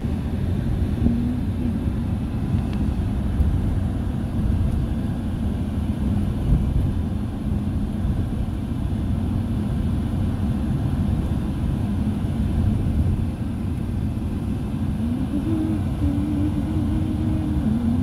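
A car driving, heard from inside the cabin: a steady low rumble of engine and road noise.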